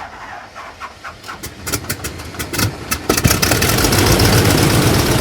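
An engine starting up: separate clicking strokes speed up and merge into a louder, steady running sound about three seconds in.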